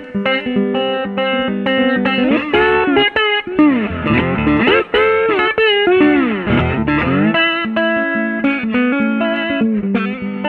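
Background music led by electric guitar, with a passage of bent, gliding notes in the middle.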